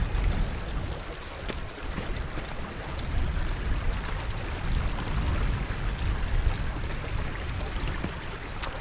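Wind rumbling and buffeting on the microphone, with a small moorland stream trickling underneath.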